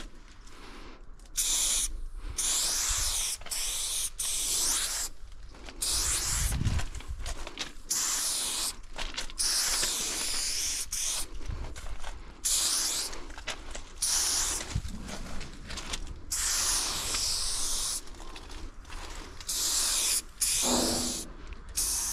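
Aerosol spray-paint can hissing in repeated bursts of one to two seconds, stopping and starting over and over as paint strokes are laid down.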